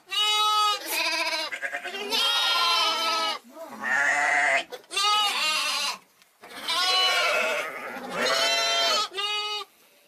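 Young sheep (hogget) bleating repeatedly: about eight wavering, quavering bleats in a row, each short, one somewhat longer, with brief pauses between them.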